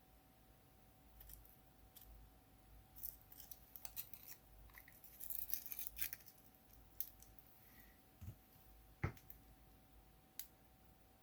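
Faint clicks and short scratchy rustles of small parts being handled as a multimeter's front panel and LCD screen are worked apart by hand, with one sharper knock about nine seconds in. A faint steady whine sits underneath.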